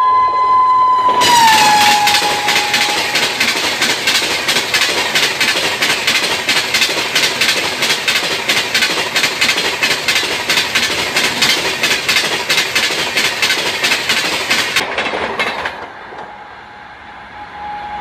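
WAP7 electric locomotive's shrill horn sounding as it approaches, its pitch dropping as the locomotive passes, then the Rajdhani's coaches rushing past at speed with a loud, rapid clatter of wheels over rail joints for about 13 seconds, which cuts off. Near the end a horn sounds again, fainter.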